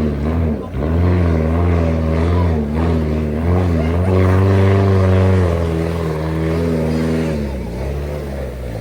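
Car engine revving up and down under acceleration, its pitch climbing and dropping several times, held high for a second or so about halfway through, then settling lower.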